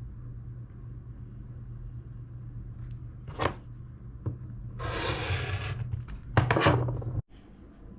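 Fabric and sewing tools being handled over a steady low hum: a single click, about a second of rustling and scraping, then a few sharp clicks with more rustling. The sound cuts off abruptly near the end.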